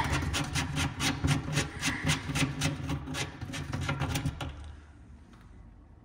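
Plastic screw cap on the side spigot of a kitchen sink waste fitting being unscrewed by hand: a quick, even run of plastic thread clicks and rasps, stopping about four and a half seconds in.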